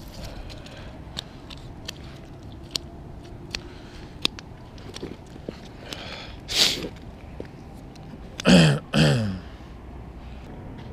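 A man makes two short throat noises in quick succession near the end, over faint scattered clicks and a steady low background, with a short breathy burst of noise about two-thirds of the way in.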